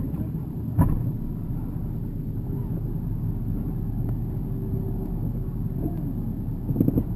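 Low, steady rumble of a motorboat's engine running, with one sharp knock about a second in.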